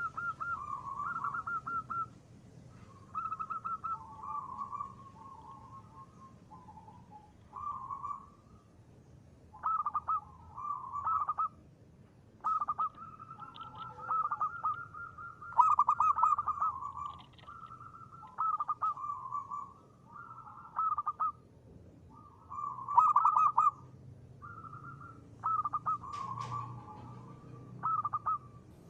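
Local Indonesian zebra doves (perkutut) cooing: rolling, trilled coo phrases repeated one after another with short pauses between.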